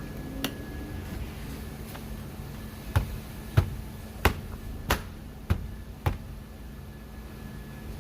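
A run of six sharp clunks, evenly spaced about 0.6 s apart, after one fainter click. These are the car door's lock mechanism and switches being worked to test the newly replaced front door handle.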